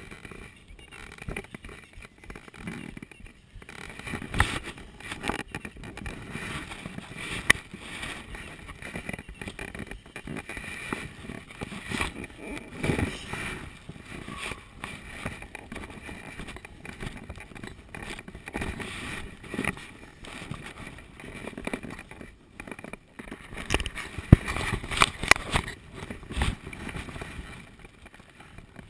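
Irregular scuffing, rustling and knocking of clothing and handling against a chest-mounted camera as the wearer moves about on foot over gravel, with no engine running. A burst of louder knocks and scrapes comes a few seconds before the end.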